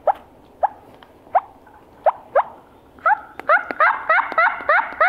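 A hunter calling through cupped hands: short squeaky notes rising in pitch, about one every half second. About three seconds in they turn into a faster, louder run of fuller notes, several a second.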